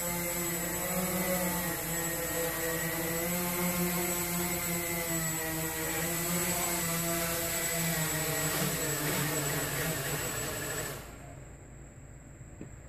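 Walkera QR X350 Pro quadcopter's motors and propellers whining steadily in flight, the pitch wavering slightly with throttle; the sound drops away abruptly near the end.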